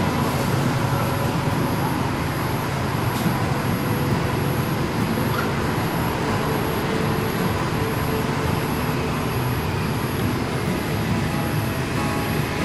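Steady rumble and hiss of background road traffic, with a faint high chirp repeating about twice a second.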